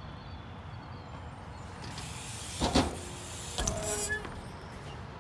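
BMX bike riding on skatepark concrete, tyres rolling, with a sharp knock a little under three seconds in and another about a second later, the second followed by a brief squeak.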